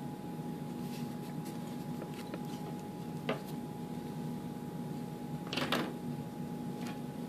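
Steady low hum with a thin constant whine, broken by a few light clicks and a louder double tap about two thirds of the way in, from hands handling a ruler and paper on a table.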